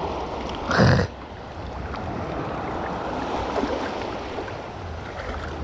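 Small waves washing and breaking on the shoreline, with wind on the microphone. About a second in there is one brief, loud burst.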